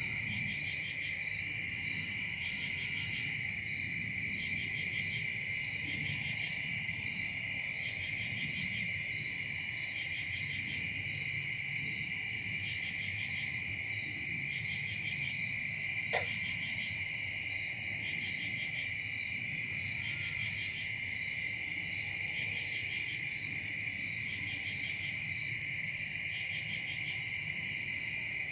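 Night chorus of crickets and other insects: several steady high-pitched trills at once, one of them pulsing in short repeated trains.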